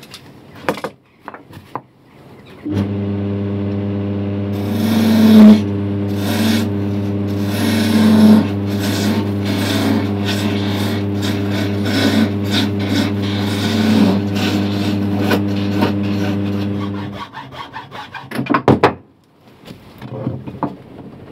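Wood lathe motor starting up and running with a steady hum while a hand-held gouge cuts a spinning wooden scythe-nib blank, giving an uneven scraping, rasping cutting noise. The motor stops a few seconds before the end, followed by a few clunks.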